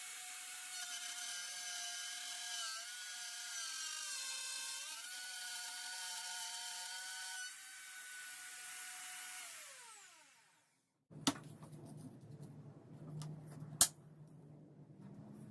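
Wood router running at high speed while cutting a groove in a board. Its whine dips in pitch for a moment about four seconds in as the bit loads, then winds down with falling pitch at about ten seconds. Afterwards come handling noises with two sharp knocks.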